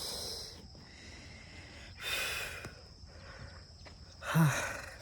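A man breathing heavily close to the microphone: three loud breaths about two seconds apart, the last ending in a short voiced grunt.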